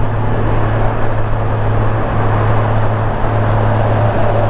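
2018 Honda Gold Wing's flat-six engine running at steady cruising speed, a constant low hum under even wind and road noise on the rider's helmet-mounted microphone.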